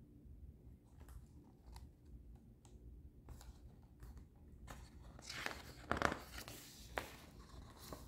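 Paper rustling as a picture book's page is handled and turned, loudest about six seconds in, with faint scattered ticks of paper before it.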